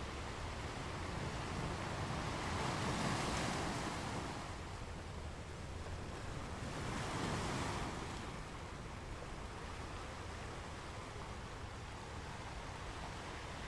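Gentle ocean waves washing onto a sandy beach, a steady hiss of surf with two waves swelling and fading, about two and seven seconds in.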